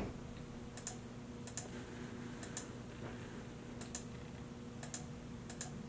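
Computer mouse buttons clicking: about six quick double clicks, each a sharp press and release, spaced roughly a second apart, over a steady low hum.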